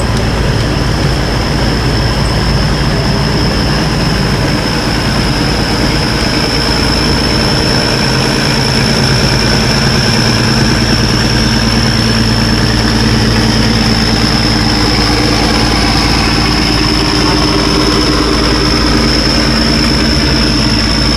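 Boat engines running steadily: a loud, constant low engine hum with a thin high whine held above it.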